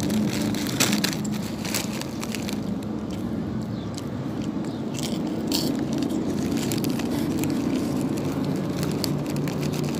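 Mouth chewing crisp bacon-flavoured Saladix crackers close to the microphone: irregular crunches, more of them in the first couple of seconds and again around the middle, over a steady low hum.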